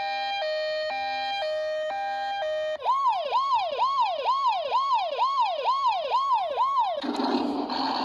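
Battery-powered toy fire truck's electronic siren sound effect: first a two-tone hi-lo siren switching between two pitches about twice a second, then almost three seconds in a fast yelp siren rising and falling about two and a half times a second. About seven seconds in it gives way to a noisier electronic sound effect with a low hum.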